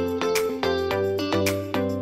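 Background instrumental music: a steady run of bright pitched notes, one about every third of a second, over a held bass line.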